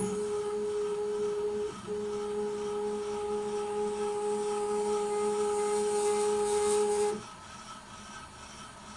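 Motor whine of the CNC-driven Ceriani David 400 during a milling pass: a steady pitched whine, briefly interrupted about two seconds in, that stops about seven seconds in, leaving a fainter steady hum.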